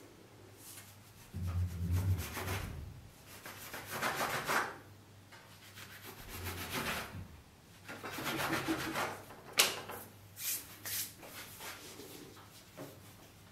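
Plastic dough scraper scraping and cutting through bread dough against a floured wooden tabletop, with hands rubbing and pressing the dough on the wood: several separate scrapes and one sharp tap about ten seconds in.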